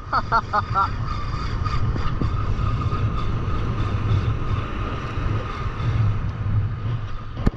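Wind buffeting the microphone over the low rush of breaking surf, with a few short high chirps in the first second and a faint steady high tone underneath.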